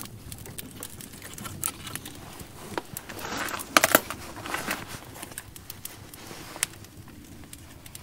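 Small wood fire crackling, with scattered pops throughout. About four seconds in there is a louder rustle with two sharp snaps.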